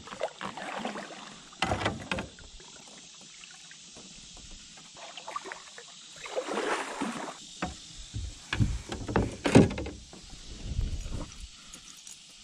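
Kayak paddle strokes in shallow creek water: irregular splashes and drips, with a few sharp knocks, the loudest about nine and a half seconds in.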